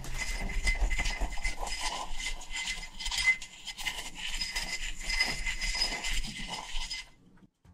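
Spicy Cheetos being crushed and ground with a wooden pestle in a ceramic mortar: a continuous crunching and scraping that stops suddenly near the end.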